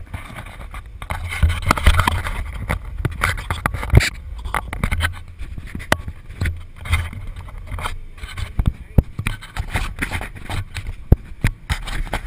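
Roller coaster car rolling on its steel track, with a low rumble and irregular clacks and knocks from the wheels and car.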